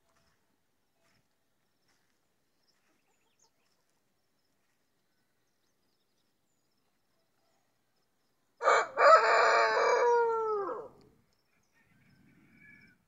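Near silence, then about nine seconds in a rooster crows once: a short opening note and a long drawn-out call, about two and a half seconds in all, that falls in pitch at the end.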